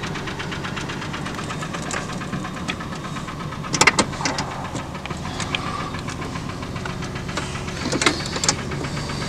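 Pickup truck engine idling, heard from inside the cab, with a steady rapid knocking running through it: a noise the owner says shows why the engine needs replacing. A few sharp clicks come about four seconds in and again near the end.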